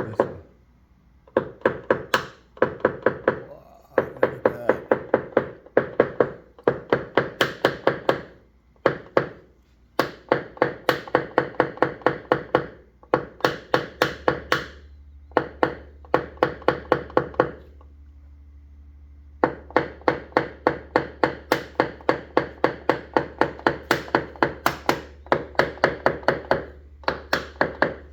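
Quick, light tapping on a dented car body panel during paintless dent repair, about five taps a second in runs of several seconds with short pauses between. A steady low hum starts about halfway through.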